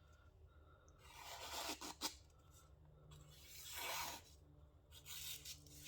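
Japanese gyuto knife blade rubbed across a whetstone in two faint, slow sharpening strokes, about a second in and again around three and a half seconds in.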